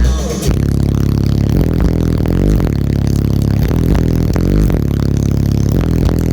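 Bass-heavy music played loud through a car audio system of eight Sound Qubed HDX4 15-inch subwoofers, deep bass notes changing every second or so. A short burst of noise comes less than half a second in.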